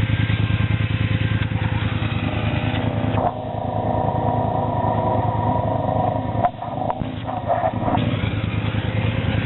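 ATV engine running with a steady low rumble, its tone shifting about three seconds in and again near eight seconds.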